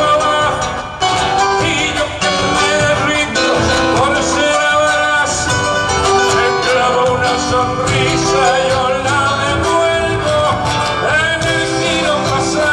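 Argentine cuyano folk music, a gato, played on guitars with singing.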